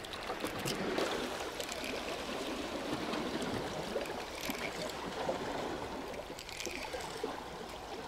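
Small sea waves washing and trickling among shoreline rocks, a steady wash with no breaks.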